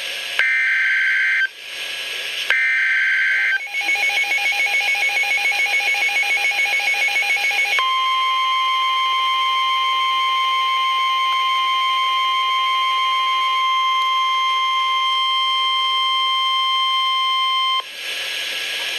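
NOAA Weather Radio emergency alert: two screeching bursts of SAME digital header data, each about a second long. These are followed by a rapid pulsing beep, and about 8 seconds in by the steady 1050 Hz warning alarm tone, which runs for about ten seconds and overlaps the pulsing for its first several seconds.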